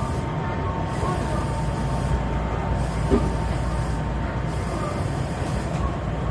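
Hankyu Senri Line commuter train running, heard from inside the front car: a steady rumble of wheels on the rails with a steady whine, and a brief knock about three seconds in.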